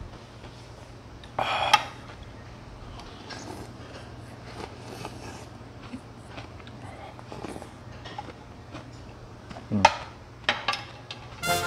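Metal spoon and chopsticks scraping and clinking against a large ceramic bowl as the last of the noodles and broth are scooped up, with a few sharp clinks about ten seconds in.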